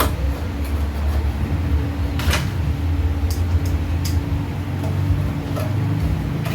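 Scattered clicks and knocks of bench grinder parts being handled and fitted back together during reassembly, five or so sharp taps over a steady low hum.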